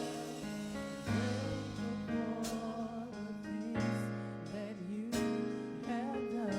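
Gospel music: sustained keyboard chords over a changing bass line, with a voice singing over them.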